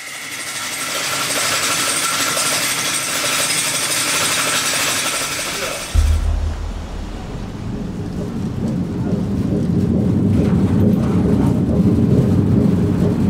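An old cable car cabin riding along its cable: a steady hissing rush with faint whining tones, which changes abruptly about six seconds in to a low, heavy rumble.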